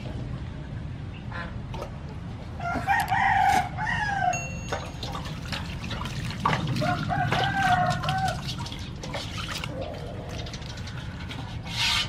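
A rooster crows twice, about three seconds in and again near the middle, each call a second and a half long, the first falling in pitch at its end. Underneath, water splashes and drips in a metal basin as a plucked chicken is washed by hand.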